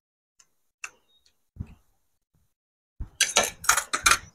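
Crunchy fried food being chewed close to the microphone: a few faint clicks of cutlery on plates, then a quick run of loud crackling crunches in the last second and a half.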